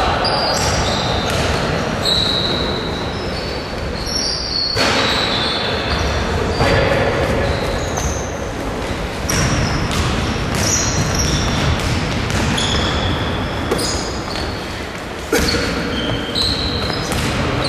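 Sports shoes squeaking again and again on a wooden gym floor, with thuds of a ball and running feet, echoing around a large hall.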